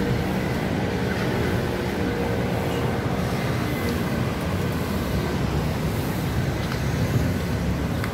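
Steady road traffic noise on a city street: a low, even rumble of passing vehicles.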